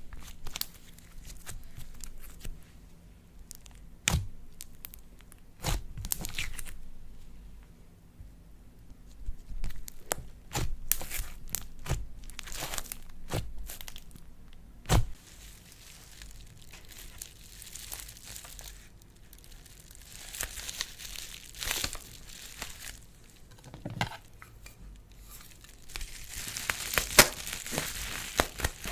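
Slime being stretched, pressed and mixed by hand: sticky crackling with scattered sharp pops and clicks, busiest near the end.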